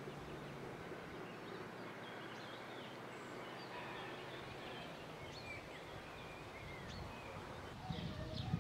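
Outdoor countryside ambience: a steady low hiss of background noise with faint, scattered bird chirps. A few louder low knocks come in near the end.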